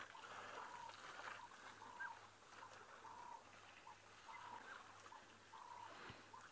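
A bird in the bush calling faintly, a short steady note repeated about once a second, over quiet background hiss.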